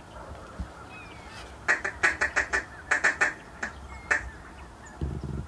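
A quick run of about nine short duck quacks starting about one and a half seconds in, followed by two single quacks. A low rumble comes near the end.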